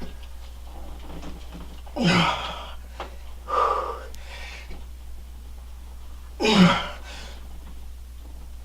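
A man's forceful breaths of effort while lifting dumbbells: a hard exhale about two seconds in, a short voiced grunt right after, and another hard exhale a few seconds later, over a steady low hum.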